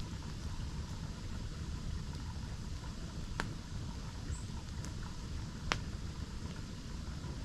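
Steady rush of a waterfall, with two sharp pops from a campfire, one about three and a half seconds in and one near six seconds.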